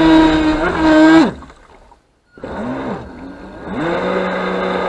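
Small RC speedboat's electric motor whining at speed; about a second in, its pitch drops and it cuts out, then after a brief silence it blips twice and winds back up to a steady whine.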